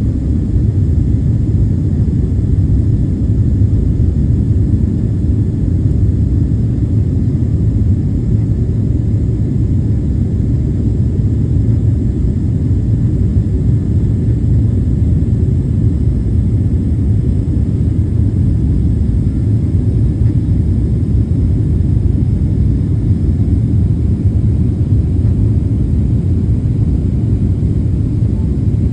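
Steady low rumble inside an airliner cabin, the engine and airflow noise of a jet airliner.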